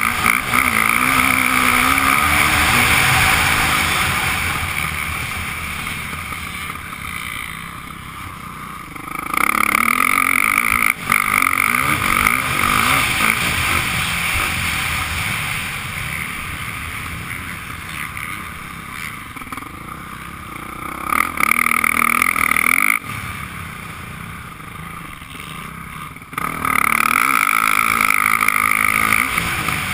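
Dirt bike engine heard from the rider's helmet while riding a motocross track. It is loud at first and fades as the throttle eases, then surges back hard three times.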